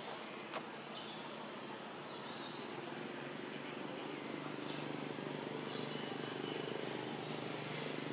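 Outdoor ambience: a steady hiss with a few faint high chirps, one brief click early on, and a low steady hum that grows a little louder from about halfway through.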